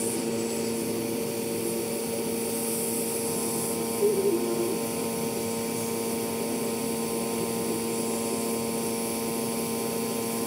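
Hot air rework station blowing steadily over a phone board's CPU pads: an even airflow hiss with a constant fan hum. There is a short voice-like sound about four seconds in.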